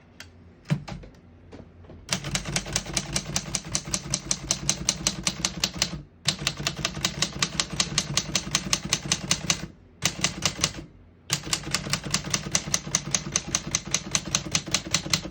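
A 1958 Remington Travel-Riter portable typewriter being typed on fast and evenly, about eight keystrokes a second. The typing comes in four runs with short pauses.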